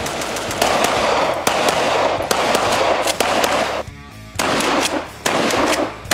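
Gunshots from an AR-style rifle and a pump-action shotgun, about one shot a second with a short pause about four seconds in, each ringing on briefly. Background music plays underneath.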